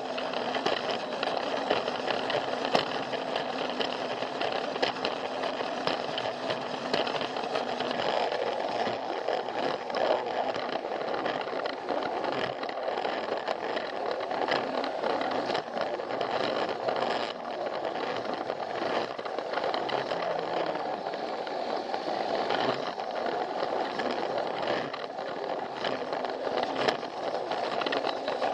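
Plarail battery-powered plastic toy train running along plastic track: a steady whir of its motor and gears with rattling and frequent irregular clicks from the wheels over the track joints.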